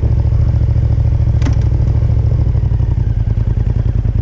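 2019 Yamaha MT-07's parallel-twin engine idling with a steady, even pulse. A single sharp click comes about a second and a half in.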